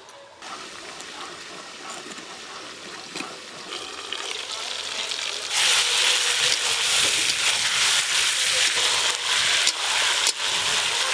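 Chicken pieces in spice paste sizzling in a kadai over a wood fire while a metal spatula stirs and scrapes them, the kosha stage of braising the meat down in its masala. The sizzling gets much louder about five and a half seconds in.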